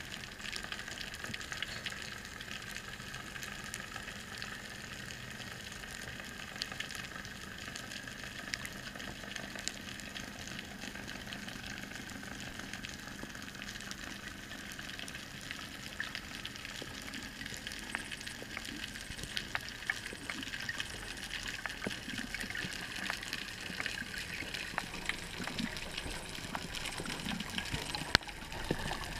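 Underwater ambience picked up through a camera housing on a speargun: a steady hiss with faint scattered crackling clicks. The water noise grows louder near the end as the diver swims up toward the surface.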